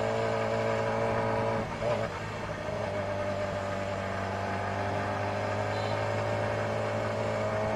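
Yamaha R6's 600 cc inline-four engine running under way, heard from the rider's seat. The note dips briefly about two seconds in, then holds steady and climbs slowly in pitch.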